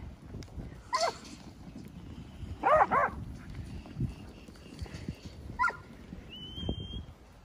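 Black-and-tan working yard dog barking at a mob of sheep, a mob bark that pushes the sheep forward: four short barks, one about a second in, two in quick succession near three seconds and one more late on. Underneath is a low rumble from the mob on the move, and near the end comes a short high whistle.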